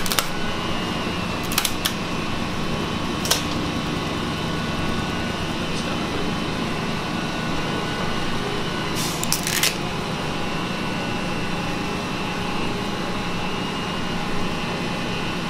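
Steady electric fan hum with a few fixed whining tones, with a handful of short clicks and taps from handling a plastic build tray and printed part.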